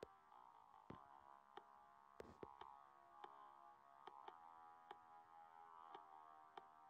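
Near silence: a faint, steady synthesizer drone of background music, with soft clicks scattered through it.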